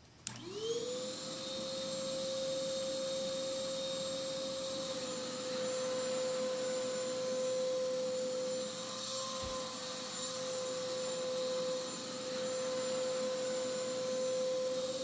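Vacuum cleaner switched on with a click, its motor spinning up to speed within about half a second and then running with a steady whine.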